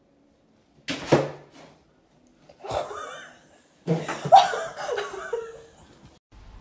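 A person laughing in three bursts, the last one the loudest and longest.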